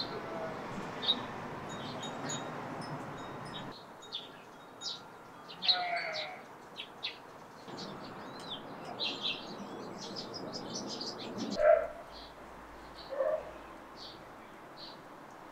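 Small birds chirping and calling in short, scattered high notes, with a few lower, fuller calls in the last few seconds.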